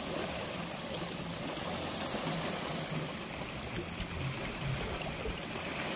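River water running and splashing against the edge of a concrete weir apron, a steady wash of water.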